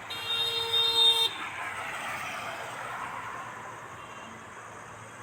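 A vehicle horn sounds once, a steady blare lasting about a second, then road-vehicle noise swells and fades away.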